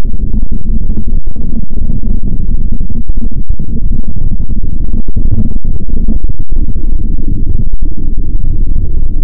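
Loud, heavily distorted low rumbling noise that holds steady, broken by a few very brief dropouts.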